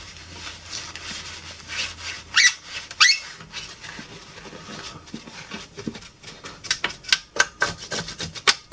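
Paper towel rubbed and scrubbed over the metal rear panel and phono connectors of a Pioneer SA-620 amplifier, with two short high squeaks about two and three seconds in and a quick run of scrubbing strokes in the second half.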